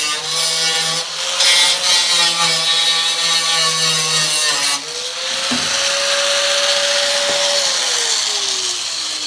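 A high-speed power tool whining as it works the quarter panel's sheet metal. About five seconds in it drops off, runs back up, and near the end spins down with a falling pitch.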